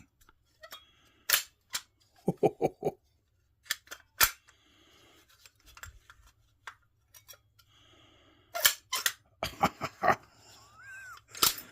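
A Jeep Wrangler YJ's modified door handle and latch being worked by hand, giving a series of sharp metallic clicks and clunks, some in quick clusters, as the latch is tried.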